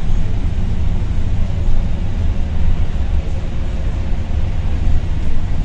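Inside a Volvo B7RLE single-deck bus cruising at a steady speed: a steady low drone from its six-cylinder diesel and ZF automatic gearbox, with a faint steady whine and tyre noise on the wet road.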